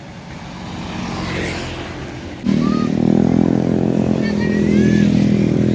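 Road traffic noise, then about two and a half seconds in a loud motor vehicle engine cuts in abruptly and runs steadily close by, with a few faint high voices over it.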